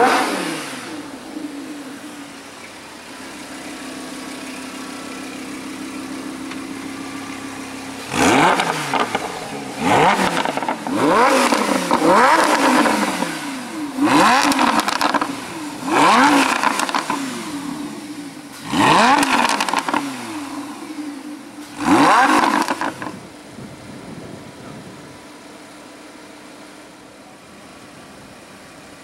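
Lamborghini Huracán's 5.2-litre V10 revved while parked: a loud rev right at the start, then idling steadily, then about seven quick blips of the throttle, each rising sharply and falling back, before settling back to idle.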